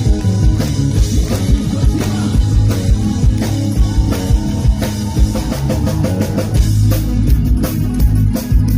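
Rock band playing live in an acoustic arrangement: a steady drum kit beat with guitars and bass.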